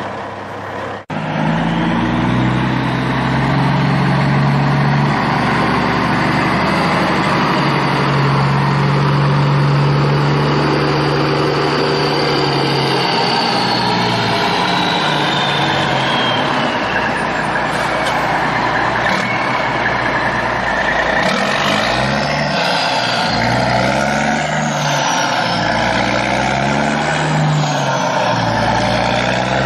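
Heavy truck engine running, its pitch rising and falling again and again as it revs and eases off, with a high whine that glides down about halfway through. It cuts out briefly about a second in.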